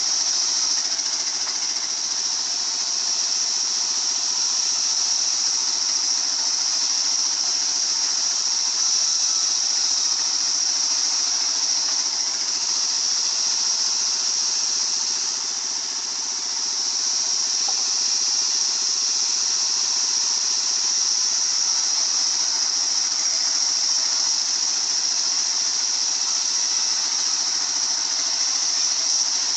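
Sawmill circular saw running steadily, a constant high-pitched hiss over a low engine hum, easing slightly about halfway through.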